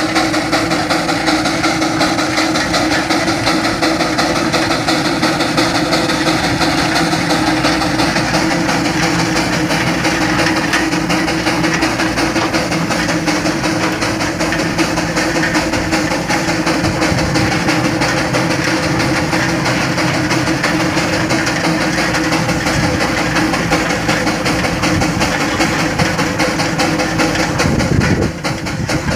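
1913 Geiser Peerless Model R steam traction engine running, with a fast, even beat of exhaust and mechanical clatter over a steady tone.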